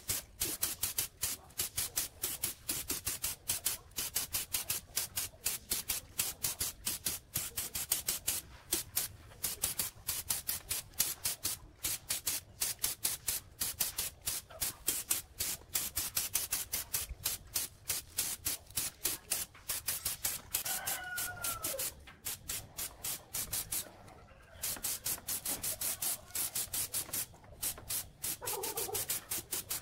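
Gravity-feed paint spray gun hissing in rapid short pulses, several a second, as paint is sprayed. A bird calls briefly about twenty seconds in.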